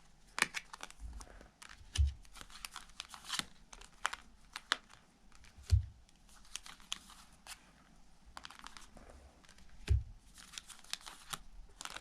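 Lenormand cards being flicked through and laid down one at a time while searching the deck: irregular quick papery flicks and snaps, with three soft low thumps.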